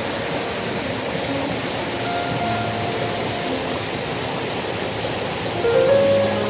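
Valley stream water rushing steadily, with soft background music of slow held notes under it.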